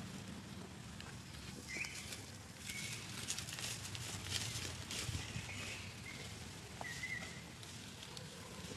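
Rustling and crackling of dry leaf litter as macaques move about on it, busiest in the middle. A few short, high, steady-pitched chirps come through about 2, 3, 6 and 7 seconds in, over a steady low hum.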